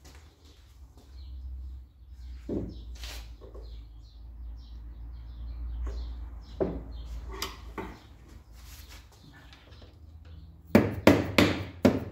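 Metal tool clicks and knocks on the seized part of an air compressor as it is worked loose. Near the end comes a fast run of loud, sharp knocks, about five a second.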